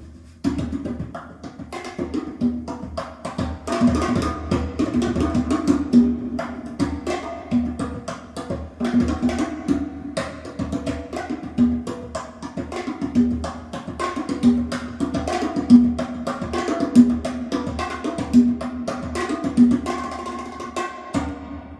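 Music with busy percussion: fast wood-block-like clicks over a low note that repeats about once a second.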